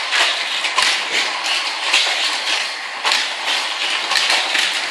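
Continuous plastic clattering and clicking of Hot Wheels toy cars and plastic track pieces being handled and run, with many small knocks throughout.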